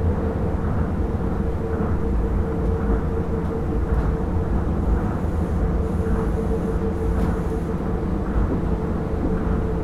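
Interior running sound of a Hitachi-built Tokyo Monorail Series 1000 car, a rubber-tyred straddle-beam monorail with resistor control, travelling at steady speed. There is a continuous low rumble and a steady whine of unchanging pitch.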